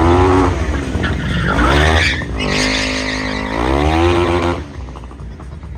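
A high-revving engine sweeps up and down in pitch several times, with tyre skid noise about two seconds in. The engine drops away near the end.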